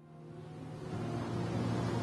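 A steady rushing noise that fades in and swells, with a low steady hum joining about a second in.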